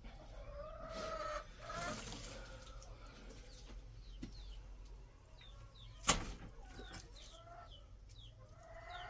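Bird calls: a few drawn-out pitched calls in the first two seconds and short falling chirps through the rest, with one sharp knock about six seconds in.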